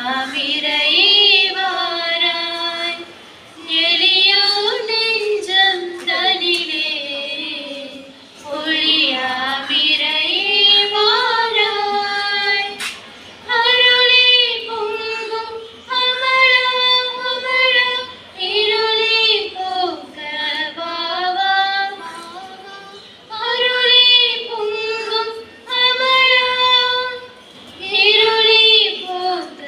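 A woman singing a song solo into a microphone, in phrases of a few seconds with long held notes and short breaks between them, no instruments heard.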